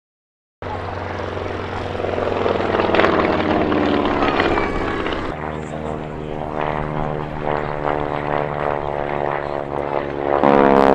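Avro Lancaster bomber's four Rolls-Royce Merlin V12 engines and propellers droning past in flight, cutting in abruptly just after the start. About five seconds in, the sound switches abruptly to a single-engine biplane's piston engine running in flight, and it grows louder near the end.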